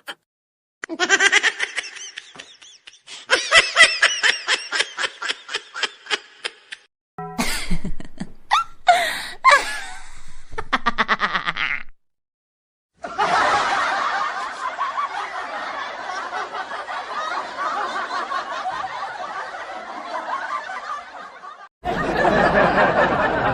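A string of short laughter sound effects separated by brief silences: rapid, evenly pulsed cackling, then a longer, denser stretch of laughter.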